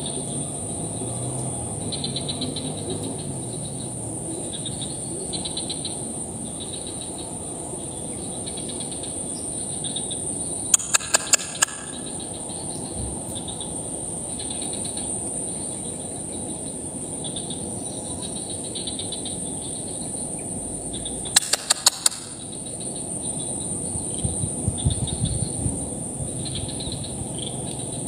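Steady high-pitched insect chorus with pulsed chirping from a rice paddy. Twice, about 11 seconds in and again about 22 seconds in, a quick run of four or five sharp clicks, the loudest sounds.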